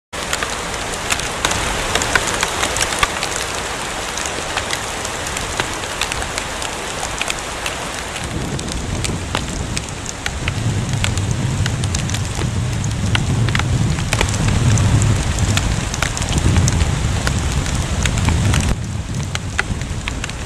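Hailstorm pelting an osprey nest and its camera: a dense hiss of falling hail and rain, peppered with sharp clicks of hailstones striking. A low rumble joins about halfway through and fades near the end.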